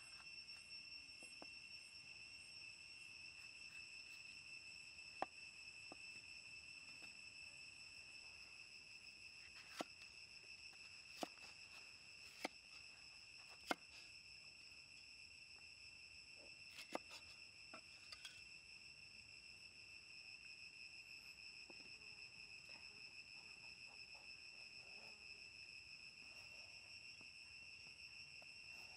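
Cleaver slicing bell peppers on a wooden chopping block, with about seven sharp knocks of the blade on the wood in the first two-thirds. Under them, insects keep up a steady high trill.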